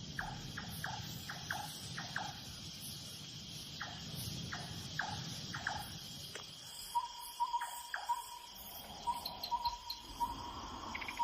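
Tropical forest ambience at dusk: a steady, high insect drone with short chirps scattered through the first half, then a run of short calls all on one pitch from about seven seconds in.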